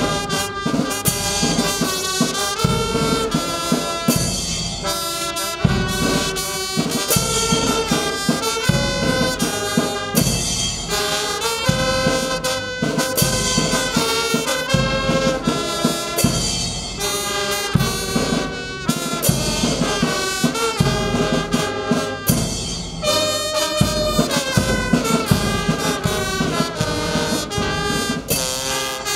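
Brass band music: held brass notes over a steady drum beat.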